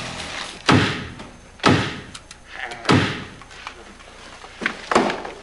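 A series of loud thuds or bangs: four heavy ones, the first three about a second apart and the last after a longer gap, with a few lighter knocks between them.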